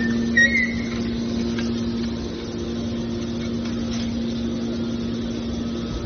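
Hydraulic scrap-metal baler's power unit running with a steady hum, with a brief high squeal about half a second in.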